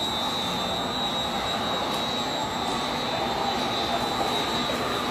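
Steady mechanical noise with a constant high-pitched whine running through it.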